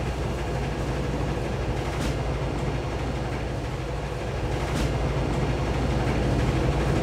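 Steady low rumble of a commercial front-loading washing machine tumbling a soapy wash, slowly growing louder.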